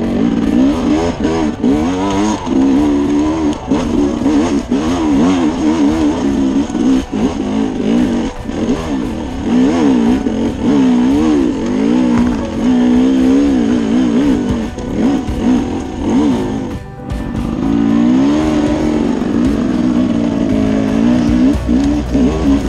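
Enduro dirt bike engine heard from on board, its pitch rising and falling constantly with the throttle as it rides a rough dirt trail, with sharp knocks from the bumps. The engine note drops briefly about three quarters of the way through as the throttle is closed.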